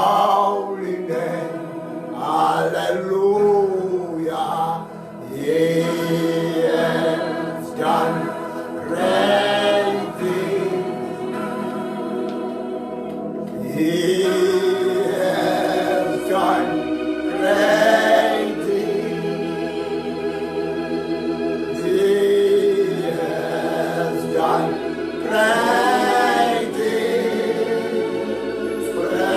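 A choir singing a gospel song, in phrases of long held notes that bend up and down.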